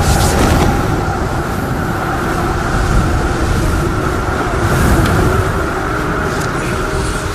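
A steady, loud, low rumbling roar from a TV drama's sound effects, with brief hissing swells near the start and about five seconds in.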